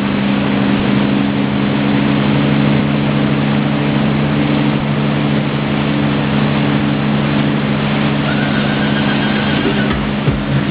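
Wakesurf boat's inboard engine running steadily under load, with a steady rushing hiss over it.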